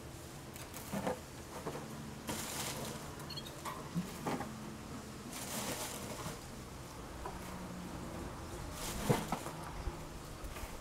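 Dry wood shavings being poured and spread by hand over a beehive's feeder tray, rustling and pattering in a few short bursts with some light knocks, over a faint steady low hum.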